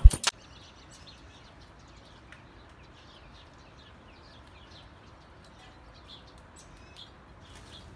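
A single thump at the very start, then faint birds chirping, many short calls repeating over a quiet background.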